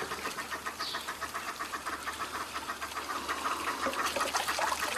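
A wooden stirrer clicking rapidly and evenly against the inside of a ceramic bowl as something is stirred or beaten in it; it grows slightly louder toward the end.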